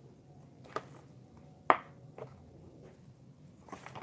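Clear plastic toy packaging handled by hand: a few short, sharp crinkles and clicks, the loudest about halfway through.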